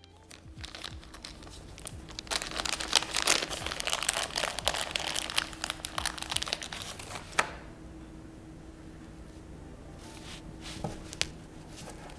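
Crinkling and rustling handled right at a clip-on lavalier microphone, dense with sharp crackles, then dropping away about seven seconds in to a quiet stretch with a few separate clicks.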